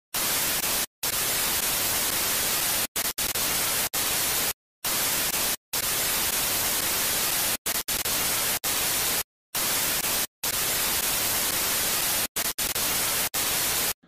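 Loud static hiss like a detuned television, even across all pitches, cutting out abruptly to dead silence many times for split seconds.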